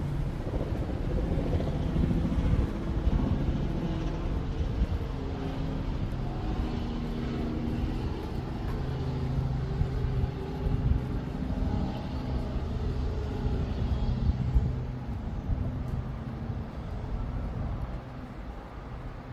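City street traffic: vehicle engines running and passing with a steady low rumble, easing off somewhat over the last few seconds.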